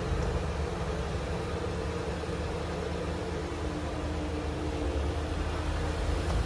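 Lexus GX470's 4.7-litre V8 idling steadily, a low rumble with a constant hum over it, while the rear height-control air suspension lowers the back of the truck.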